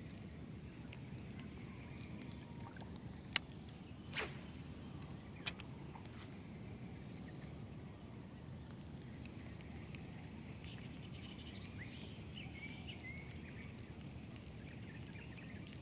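Steady high-pitched insect drone over a low rumble of wind and handling noise, with a few sharp clicks three to five seconds in.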